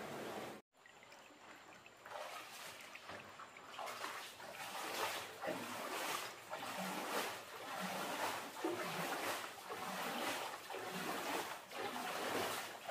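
Water splashing in a steady run of strokes, roughly two a second, after a brief drop to silence about a second in.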